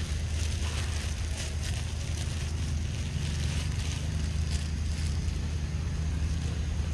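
Steady low rumble of wind buffeting the microphone, with faint scattered crackles over it.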